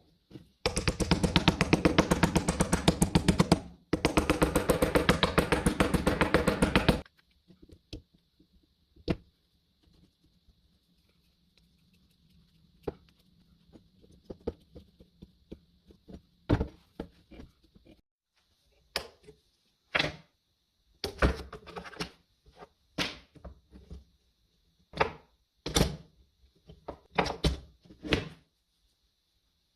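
Two bursts of rapid, machine-fast tapping, each about three seconds long, followed by a string of separate knocks and clicks from tools being handled on a workbench.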